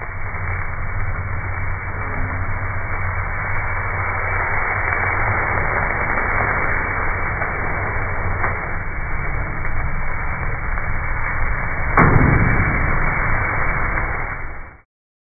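Steady rushing noise of a grill's open flames flaring up under steaks, with a sharp knock about twelve seconds in.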